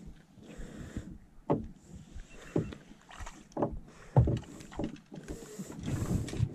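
Water slapping and lapping against a small boat's hull: irregular knocks and splashes about once a second over a soft washing hiss.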